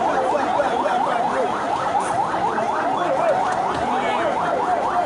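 Emergency vehicle siren on a fast yelp, a rising wail repeating several times a second, over the noise of a large crowd.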